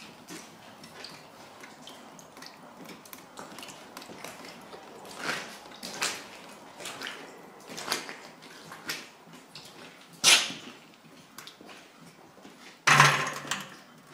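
Footsteps and scattered crunches and knocks of someone moving through a cluttered, debris-strewn room, about one a second, with a louder knock about ten seconds in and another about thirteen seconds in.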